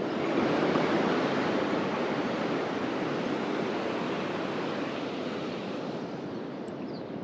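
Waves washing on the shore, a steady rush that swells about a second in and slowly dies away.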